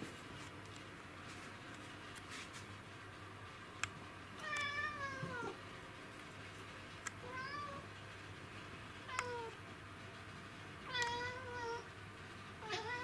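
Domestic cat giving about five short, wavering meows and chirps, a second or two apart, while fixed on an insect out of reach: the excited calling of a cat in hunting mode. A couple of sharp clicks fall between the calls.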